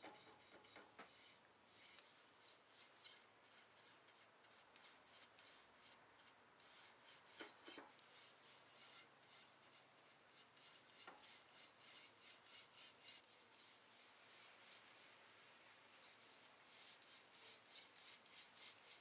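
Faint, repeated strokes of a bristle chip brush rubbing vinegar-and-steel-wool solution onto raw wood veneer.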